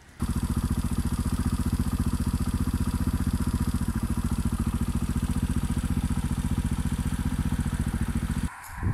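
Beta Alp 200's single-cylinder four-stroke engine running at a steady cruising speed while the motorcycle is ridden, a fast, even pulsing exhaust note. It stops abruptly near the end.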